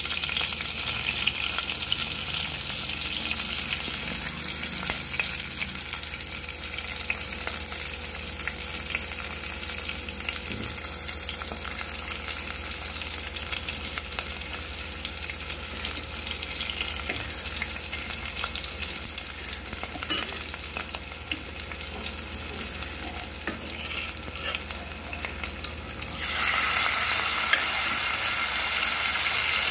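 Cumin, mustard seeds and green chillies sizzling in hot oil in a clay pot, a tempering (tadka) for dal. About 26 seconds in, the cooked moong dal with zucchini goes into the hot oil and the sizzling suddenly gets louder.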